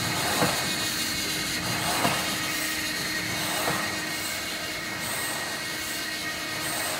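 A 40-inch automatic platen die-cutter running, a steady mechanical hum with a sharp knock about every second and a half as the press makes each cutting stroke through a sheet of 2 mm jigsaw puzzle board. The knocks are loudest in the first few seconds.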